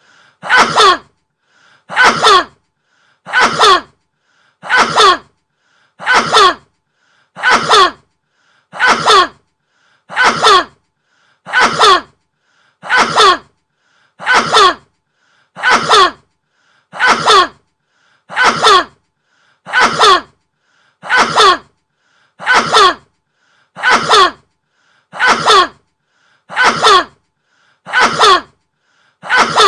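A man sneezing over and over, about twenty sneezes evenly spaced roughly one and a half seconds apart. Each sneeze is the same, with a faint short intake just before it.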